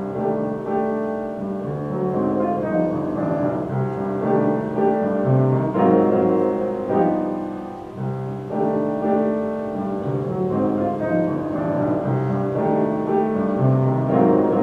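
Instrumental introduction to a Christmas song: chords over a bass line that moves note by note, with no voice.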